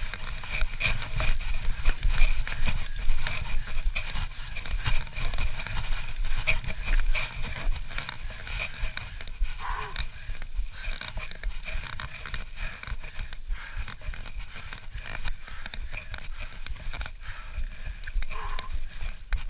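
Trek Slash full-suspension mountain bike ridden down a dirt trail: tyres rolling over dirt and roots, with the bike rattling and clicking over the bumps under a steady rumble of riding noise.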